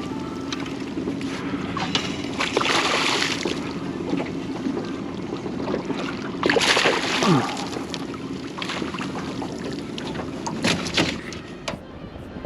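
Small aluminium boat on the water, with a steady low hum under irregular surges of water sloshing and wind buffeting the microphone.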